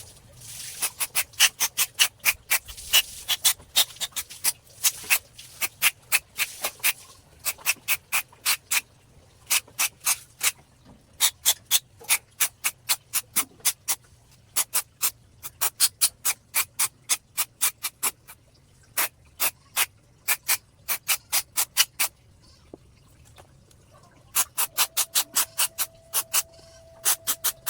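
Motorcycle fuel injector clicking in rapid runs as it is pulsed open and shut, squirting cleaner with a hiss during the first several seconds. A steady tone sounds near the end.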